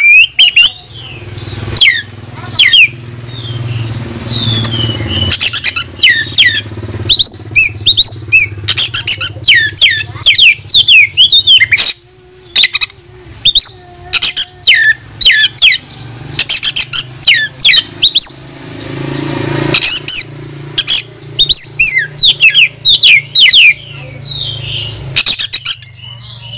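Oriental magpie-robin (kacer) singing loudly and almost without pause: a rapid run of sharp whistled notes, many sliding down in pitch, mixed with harsh notes. It is the bird's full, worked-up challenging song, calling a rival to fight.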